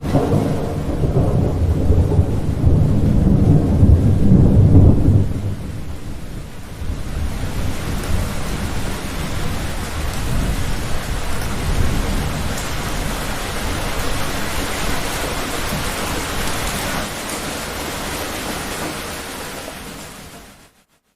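Thunderstorm: a loud rolling rumble of thunder for about the first five seconds, then steady heavy rain hissing, fading out near the end.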